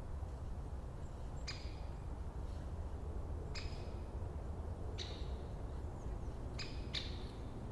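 Birds giving short, sharp calls, five in all and spaced irregularly, over a steady low rumble of winter forest ambience.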